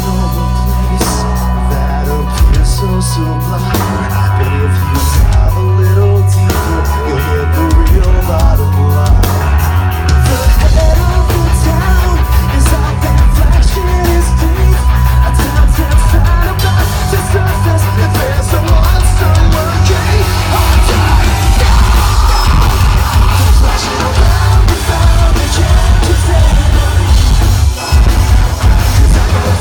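Metalcore band playing live through a loud PA: pounding bass and drums, distorted guitars and sung and yelled vocals, the low end filling out further about eight seconds in.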